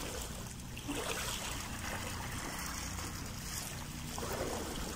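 Steady wash of sea water lapping against a rocky shore, with wind rumbling on the microphone.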